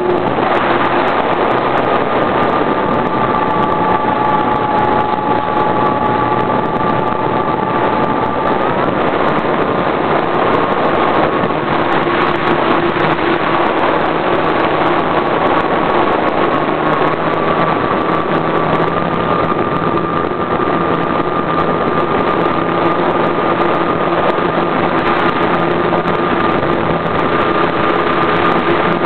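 RC model airplane's engine running steadily at throttle, heard from a camera mounted on the plane, with rushing air noise; its pitch shifts slightly a few times.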